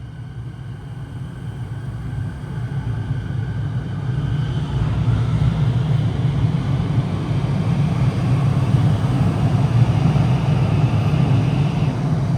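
Electric suburban train approaching through the underground station: a low rumble that grows steadily louder, with wheel-on-rail hiss building from about five seconds in.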